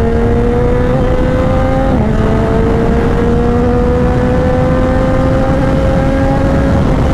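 Yamaha MT-09's three-cylinder engine under hard acceleration, with wind rush, heard from the rider's position. The engine note climbs steadily, drops at an upshift about two seconds in, climbs again, and drops at another upshift near the end.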